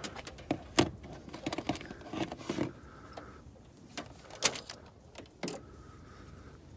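Scattered clicks and knocks of equipment being handled, with a faint thin whine twice. The engine is not running.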